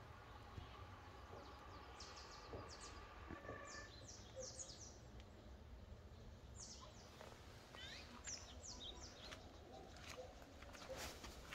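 Faint birdsong: songbirds giving clusters of short, high, downward-sweeping notes, over a steady low background rumble.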